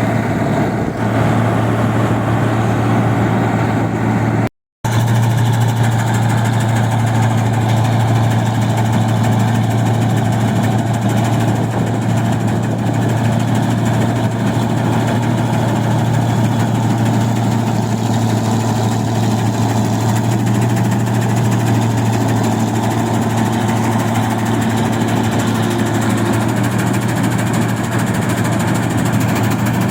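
Engine of a rice machine running steadily at an even speed, a deep constant hum. The sound cuts out completely for a moment about four and a half seconds in, then carries on unchanged.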